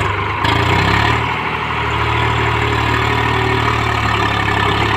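Swaraj 735 FE tractor's three-cylinder diesel engine running hard and steady while hauling a fully loaded trolley, a little louder about a second in.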